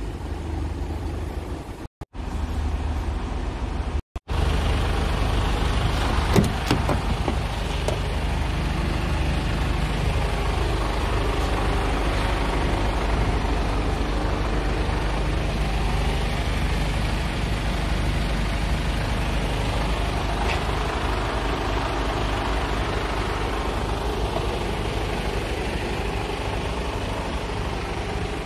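Scania G450 truck's 13-litre straight-six diesel idling steadily. The sound cuts out twice within the first few seconds, then the idle is louder and closer, with a couple of faint clicks.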